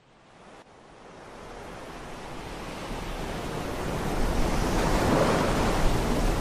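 Ocean surf, waves breaking and washing in. The sound fades in from near silence and grows steadily louder over the first few seconds.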